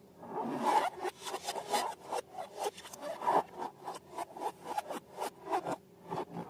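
Balloons and slime being handled up close: a quick, irregular run of short rubbing and scraping strokes, several a second.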